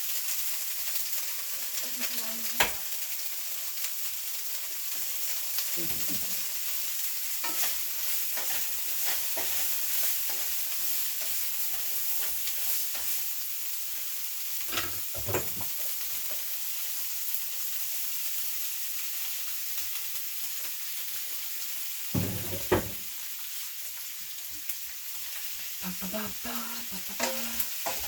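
Stir fry sizzling in a hot pan, a steady hiss, with a utensil stirring and knocking against the pan now and then; the sharpest clacks come about two and a half seconds in and again around twenty-two seconds in.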